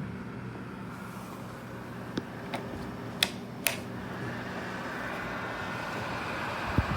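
Small PTC space heater's fan running with a steady whir and low hum, broken by four sharp clicks or taps between about two and four seconds in, and a low thump near the end.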